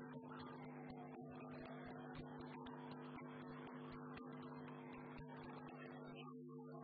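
Kitten sucking milk from a bottle nipple: many quick, irregular wet clicks and smacks over a faint steady electrical hum.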